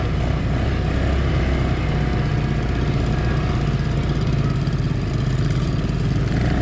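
A 200cc ATV engine running steadily at even revs, its pitch holding level throughout.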